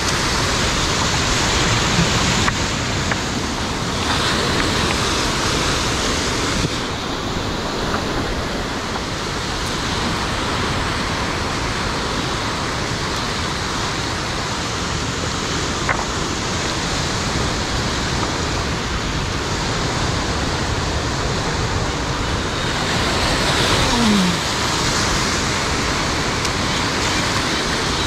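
Steady rush of sea surf breaking and washing against rocks. A short falling tone sounds near the end, where the noise swells a little.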